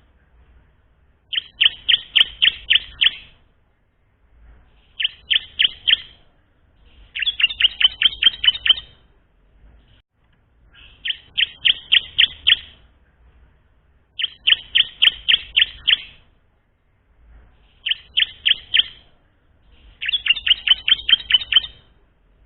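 Bar-winged prinia (ciblek) practising its song: seven bursts of quick, sharp chirps, about five a second, each burst lasting one to two seconds, repeated every three seconds or so.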